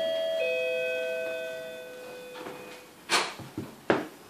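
A chime sounding a sequence of notes, each struck note ringing on and slowly fading; a new, lower note is struck about half a second in. Two short rustling noises come near the end.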